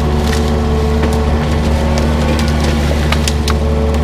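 Yanmar mini excavator's diesel engine running steadily under load, with a higher hydraulic whine that comes and goes as the boom and thumb work. Scattered sharp knocks and cracks come as the bucket and thumb grip and lift a tree trunk.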